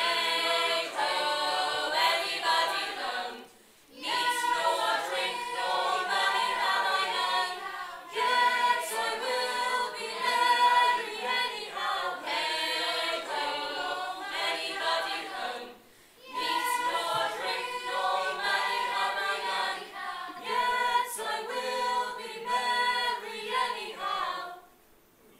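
A stage cast singing together as a chorus, in sung phrases with two short breaks, one about three and a half seconds in and one about two thirds of the way through.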